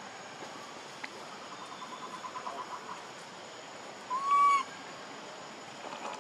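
Young macaque giving one clear coo call about four seconds in, lasting half a second and slightly arched in pitch. It is the call of an infant seeking its mother. Earlier, a quick rattling trill runs for a second or two over a steady forest hiss.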